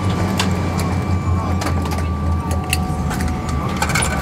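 Steady low cabin hum of a Boeing 777-300ER airliner at a standstill on the apron, with a few faint steady tones above it and scattered light clicks and knocks through the cabin.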